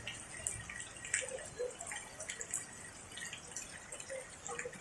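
Rain falling, with many irregular drips and splashes.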